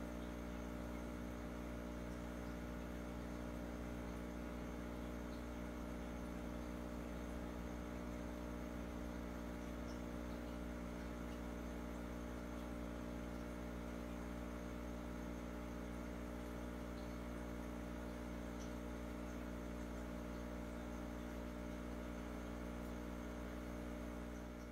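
Aquarium equipment's steady electrical hum, low and unchanging, with a faint hiss above it.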